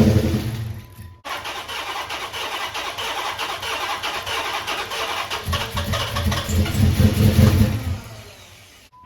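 2008 Dodge Charger engine with newly installed BBK headers running just after start-up, a rapid even pulsing that swells as it is revved for a couple of seconds near the end, then dies back; it sounds a little nasty.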